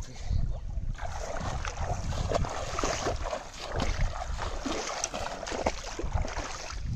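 Feet wading and splashing through shallow water in a flooded rice paddy, in irregular steps, with wind rumbling on the microphone.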